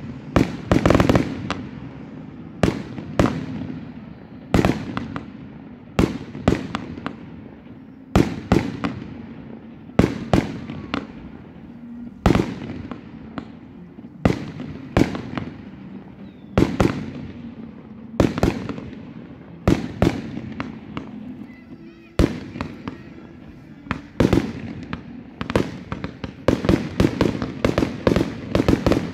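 Fireworks display: aerial shells bursting with a sharp bang about every two seconds, each followed by smaller pops and a fading tail, and a denser run of bangs near the end.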